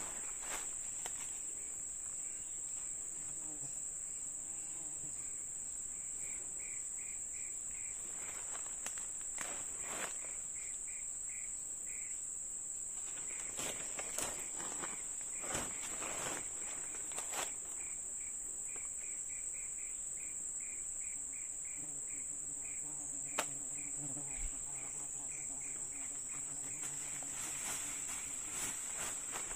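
Steady high-pitched insect drone, with runs of rapid chirping at about five pulses a second and scattered rustles and snaps.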